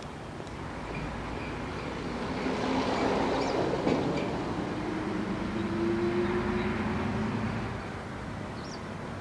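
A vehicle passing by: a steady hum that grows louder about two seconds in, holds for several seconds, and fades away near the end.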